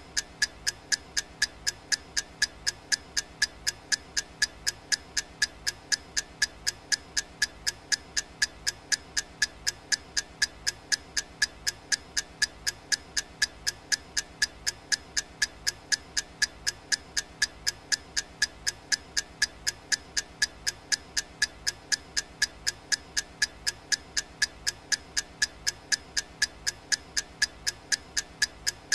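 Clock-tick sound effect of a digital countdown timer: short, evenly spaced ticks, about three a second, each with a small pitched ring, keeping a steady pace.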